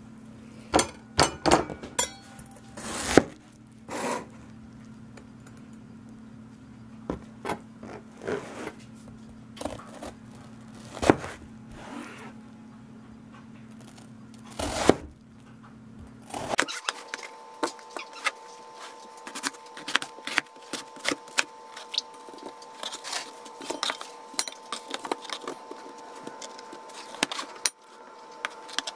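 Chef's knife cutting a peeled watermelon on a plastic cutting board: scattered sharp knocks of the blade hitting the board, becoming a denser run of quick taps in the second half, over a faint steady hum.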